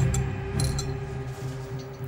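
Sustained background score, a steady droning chord, with a few light metallic clinks near the start and about half a second in.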